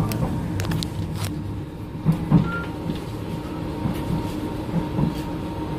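Inside a moving sleeper train carriage: the steady low rumble of the train running, with a faint steady hum and a few light clicks and knocks in the first second or so.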